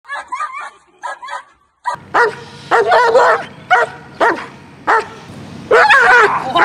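German Shepherd barking repeatedly at about two barks a second, after a few short, high yips in the first second and a half. This is defensive barking at a decoy threatening it with a padded stick: the dog's defense drive.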